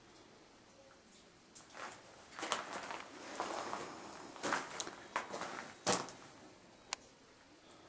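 Footsteps walking along the floor of an anthracite coal mine tunnel, a run of uneven steps with the heaviest just before the end. A single sharp click comes near the end.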